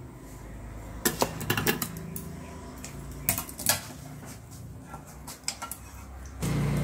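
Scattered sharp clicks and light metallic taps of hand work at a counter as scissors and small tools are handled, with a quick cluster of clicks about a second in. A louder low hum comes up near the end.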